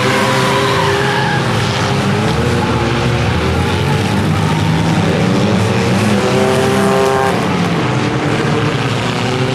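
Several compact demolition-derby car engines running hard on the track, their pitch rising and falling as the cars accelerate and back off, with one engine climbing sharply about six seconds in before dropping away.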